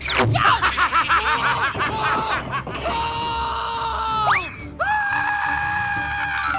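A high-pitched cartoon character's voice wailing. It quavers rapidly at first, then holds long cries, with a quick upward yelp in the middle.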